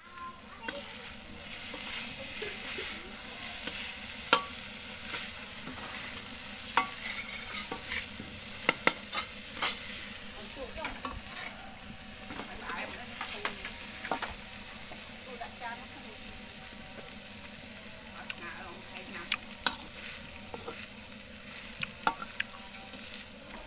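Food sizzling in a hot, blackened wok while a metal spatula stirs and scrapes through it. Sharp clinks of the spatula striking the pan come every so often over the steady hiss.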